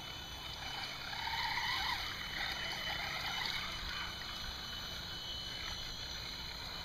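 Traxxas Summit RC crawler driving through shallow creek water: steady splashing and running water, with the faint whine of its electric drivetrain.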